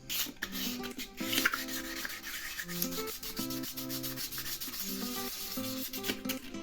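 Sandpaper rubbing over a wheel rim in repeated strokes, with background music playing underneath.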